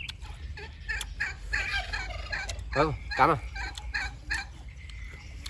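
Domestic fowl calling: a quick burbling run of short calls, then two louder calls falling in pitch about three seconds in.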